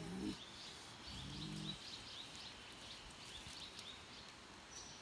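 Faint, high chirping at a few chirps a second, with a low murmuring voice twice in the first two seconds.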